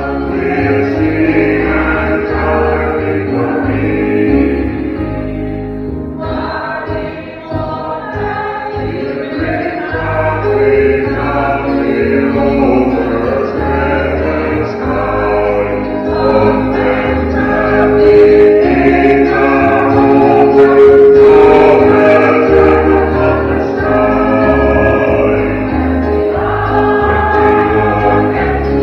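Church congregation singing the recessional hymn together, many voices at once, with low bass notes moving underneath. The singing dips a little about seven seconds in and is loudest past the middle.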